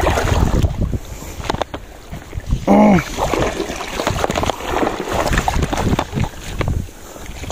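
Wind buffeting the microphone, with knocks from handling the spinning rod and reel while a hooked fish is stuck in the rocks. A man gives a short, loud exclamation about three seconds in.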